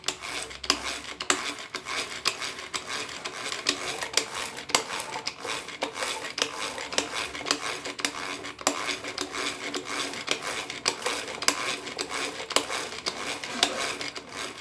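Hand beater whipping instant coffee, sugar and water in a bowl, clicking rapidly and irregularly against the sides. The mixture is frothing but not yet thick.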